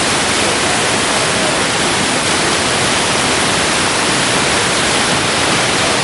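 The Manavgat Waterfall, a broad, low cascade of river water pouring over a rock ledge, giving a loud, steady, even rush of falling water.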